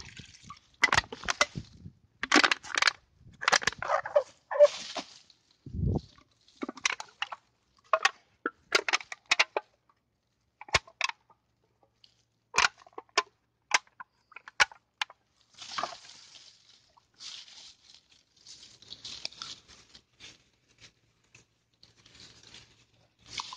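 Clear plastic drinks bottle crushed by hand: a run of crackles and sharp pops, with a dull thump about six seconds in. This gives way to softer rustling, like a plastic rubbish bag and dry reeds being handled.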